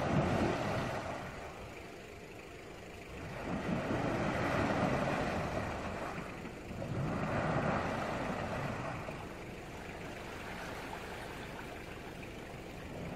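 SUV engine revving in three surges with its wheels churning water and mud, then running lower for the last few seconds: the vehicle is stuck, sitting on a hump under the water and unable to get off it.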